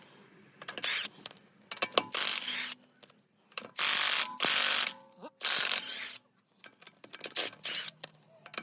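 Cordless impact wrench with a 17 mm socket hammering the wheel bolts loose, in a series of bursts of rattling that stop and start, the longest about a second.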